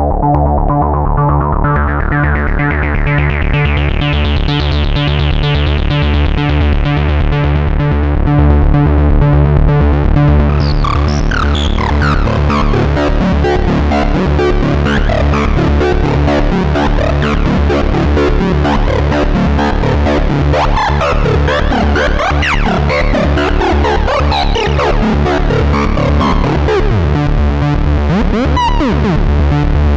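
Korg Mono/Poly analog synthesizer playing a fast repeating note pattern over a steady low bass. Its tone brightens and then darkens again over the first few seconds, the filter opening and closing. From about ten seconds in, gliding tones sweep up and down above it.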